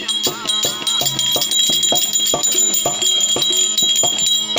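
Therukoothu accompaniment music: drums struck in a quick, even rhythm of about three strokes a second, under a steady, high metallic bell-like ringing and a low steady drone.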